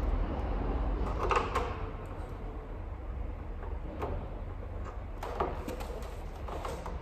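Light knocks and scrapes from fitting a carbon fiber front lip spoiler to the underside of a car's front bumper by hand, the clearest about a second in and again past the middle, over a low steady hum.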